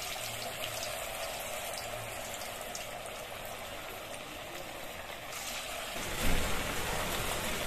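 Raw potato and sago pakora batter sizzling steadily as it deep-fries in hot oil in a kadai. About six seconds in, a lower rumble comes in with one brief thump.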